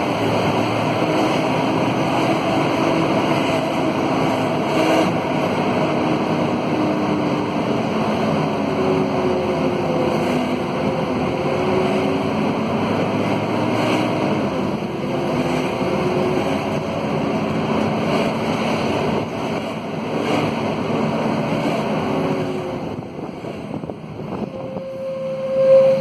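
Scania K230UB city bus underway, heard from inside the cabin: its Scania DC9 diesel and ZF Ecomat automatic driveline running, with whining tones that slowly rise and fall as the bus speeds up and slows. It goes quieter shortly before the end, then a brief louder steady whine comes in.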